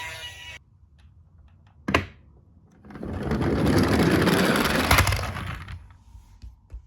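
A toy police car's electronic siren cuts off about half a second in. After a sharp click, the toy car's plastic wheels roll across a hard surface for about two and a half seconds, swelling and then fading, with a knock near the end.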